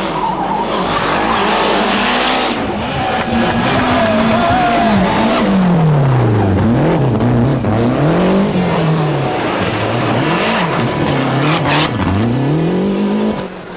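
Group A Lancia Delta rally car's turbocharged four-cylinder engine running hard at high revs. In the second half the revs drop and climb again several times in quick succession.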